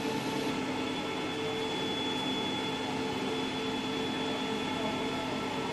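Metal lathe running, a steady machine hum with several held tones.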